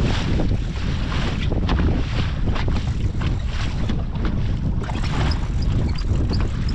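Wind blowing hard across the microphone, a steady low rumble with gusts, over waves washing around a small open boat at sea.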